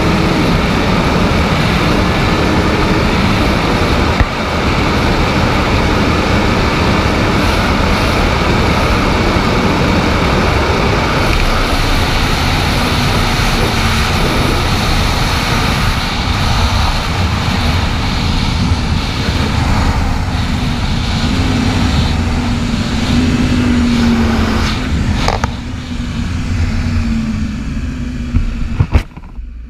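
Inline-four sport motorcycle running at highway speed, heard from the rider's seat: heavy wind rush over a steady engine drone. Near the end the engine note falls and the noise eases as the bike slows.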